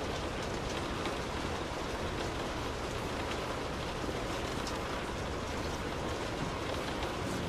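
Rain falling on a car, heard from inside the cabin: a steady hiss of rain with scattered individual drops ticking on the car.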